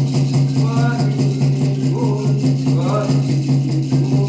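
A man singing a chant while shaking a gourd rattle in a steady beat; his voice line rises and falls over the rattle.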